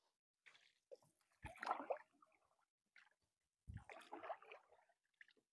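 Two strokes of a wooden boat paddle in canal water, about two seconds apart, each a low knock followed by a short splash and gurgle.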